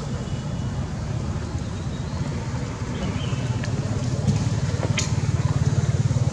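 A steady low rumble that grows louder over the last two seconds, with a few sharp clicks.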